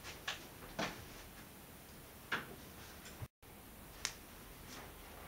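A few faint, sharp clicks and taps at irregular intervals over a quiet room hiss, broken a little over three seconds in by a brief moment of dead silence.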